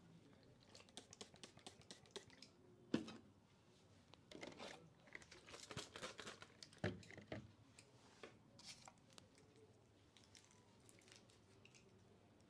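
Faint close-up rustling and crackling of hands rubbing through hair and over the scalp during a head massage, with many small sharp clicks scattered through it, busiest in the middle.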